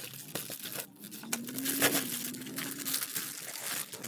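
Crinkling, rustling and tearing of a shipping package being opened by hand, an irregular run of crackles and rips.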